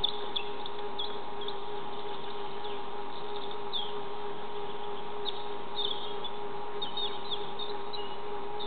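Small birds chirping, in many short high chirps, over a steady, even mechanical hum.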